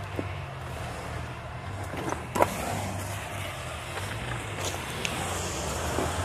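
Jeep Cherokee XJ engine running steadily at low speed as the Jeep crawls over river rocks, with a few short knocks, the sharpest about two and a half seconds in.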